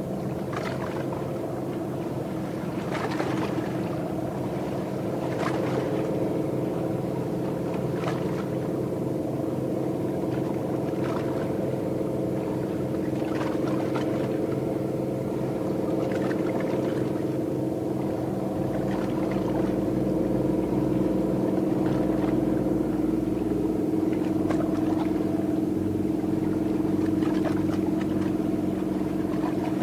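A vessel's engine droning steadily, with a deeper rumble joining about two-thirds of the way through and faint swishes every couple of seconds.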